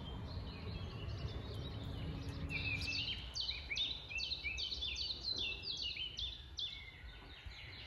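A small bird singing a quick run of repeated high chirps, each note dropping in pitch, about three a second, starting about two and a half seconds in, over a low steady background rumble.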